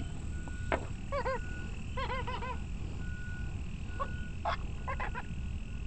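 Short croaking animal calls that rise and fall, in quick groups of two or three, with a few sharp knocks in between.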